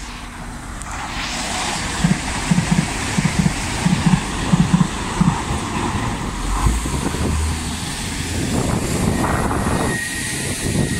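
Irish Rail 22000 Class InterCity diesel railcar train running past, a steady rush of engine and wheel noise. Between about two and five seconds in comes a run of paired clacks from the wheels crossing rail joints.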